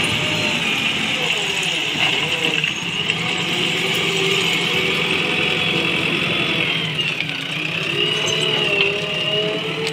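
JCB backhoe loader's diesel engine working under load as its front bucket digs into a heap of railway ballast. The engine note dips and rises again twice, about two and a half seconds in and about seven seconds in.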